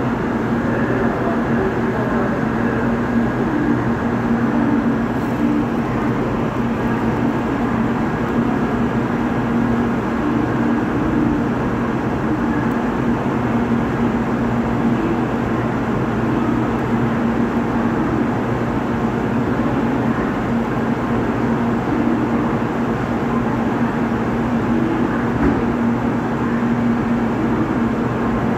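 Steady drone of railway train equipment with a constant low hum, unchanging throughout.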